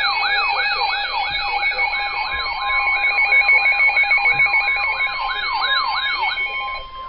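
Electronic siren sounding a fast yelp of about three falling sweeps a second, cutting off shortly before the end. A few seconds in, a steady single-pitch tone joins it and carries on after the siren stops: the NOAA Weather Radio 1050 Hz warning alarm tone that comes before a warning message.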